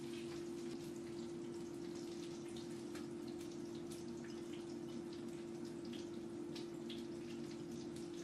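Small, irregular wet clicks and ticks of food being handled in a bowl of chili sauce as Sichuan peppercorns are tipped in. A steady low hum runs underneath.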